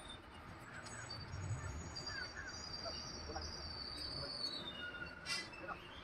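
Faint outdoor ambience: scattered short bird chirps and a thin, high steady whistle, with one brief sharp sound about five seconds in.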